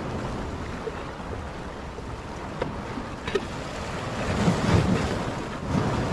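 Sea waves washing on the shore, with wind buffeting the microphone; the low rumble swells louder about four and a half seconds in, and a couple of small clicks come through.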